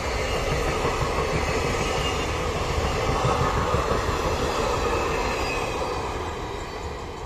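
A passenger train's coaches rolling past close by, a steady loud rumble and rattle of wheels on the rails. It fades away about six seconds in as the tail of the train goes by.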